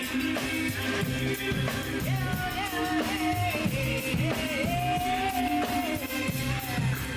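Band music with drum kit, bass and guitar keeping a steady beat; a sung melody comes in about two seconds in and holds long notes before dropping out near the end.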